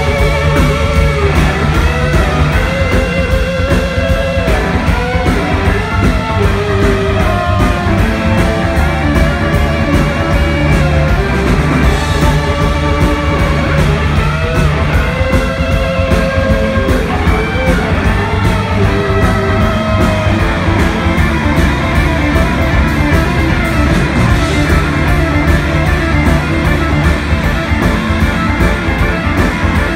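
Live rock band playing an instrumental passage: two electric guitars play lead lines with sustained, bending notes over bass guitar and a drum kit.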